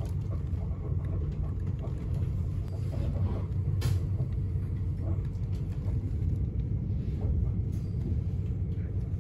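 Steady low rumble of an express passenger train running along the track, heard from inside the carriage, with one short sharp click about four seconds in.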